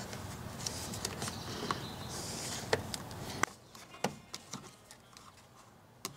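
Hands handling a plastic front bumper lip under a car, with rustling and scattered light clicks and taps as it is pressed into place; the rustling stops about three and a half seconds in, leaving a few sparse ticks.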